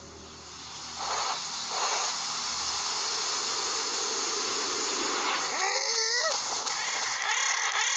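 Steady rushing hiss of a cartoon sound effect, with a short wavering squeal from the animated caterpillar about six seconds in.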